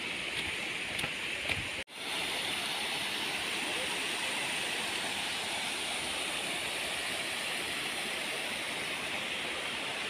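Steady rush of a waterfall cascading over rock, an even hiss of falling water. It cuts out for an instant about two seconds in, then carries on unchanged.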